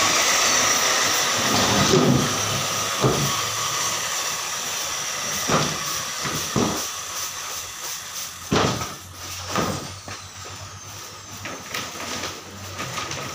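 A woodworking machine's whirring hiss fading steadily over several seconds as it spins down after being switched off. Over it come several sharp wooden knocks and thuds as large wood panels are handled.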